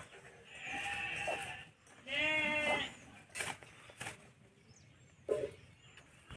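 A goat bleating twice, the second call louder and clearer, followed by a few sharp clicks.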